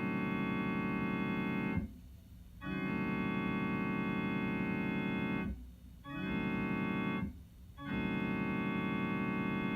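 Electronic keyboard playing a held chord that imitates a Leslie S5T five-chime locomotive air horn. It sounds four steady blasts, long, long, short, long: the grade-crossing signal.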